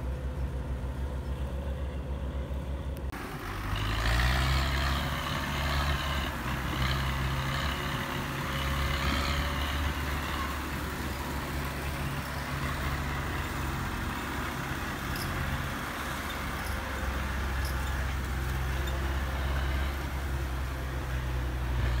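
Diesel farm tractor engines running steadily as they tow a loaded trailer, with the engine note becoming louder and rougher from about three seconds in.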